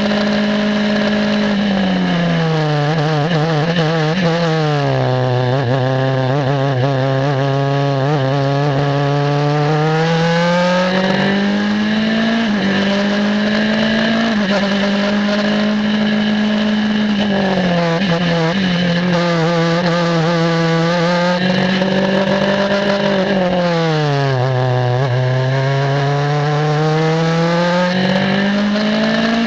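Onboard sound of an Elan DP-02 prototype race car's Mazda four-cylinder engine at racing revs: its pitch falls sharply about four seconds in and again near the end as the car slows and downshifts for corners, then climbs back as it accelerates. A steady high whine runs underneath.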